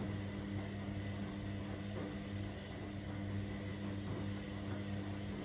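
Steady electrical hum of a running kitchen appliance, low and even, with a faint thin high whine above it.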